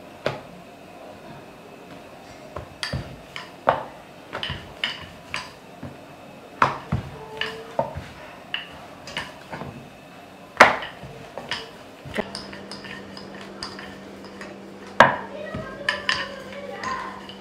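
Irregular knocks and clatter of a wooden rolling pin on a wooden board as poori dough is flattened and rolled out, with two knocks louder than the rest. A low steady hum comes in about two-thirds of the way through.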